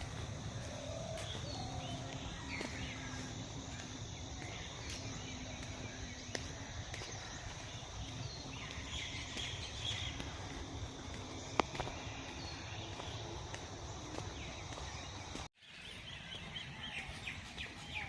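Several birds chirping and calling in short scattered phrases over a steady background hum of outdoor noise. The sound cuts out abruptly for a moment near the end, then the chirping carries on.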